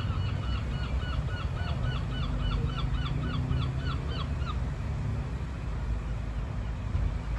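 A gull calling a rapid run of repeated yelping calls, about four a second, which stops about four and a half seconds in. A steady low rumble lies underneath.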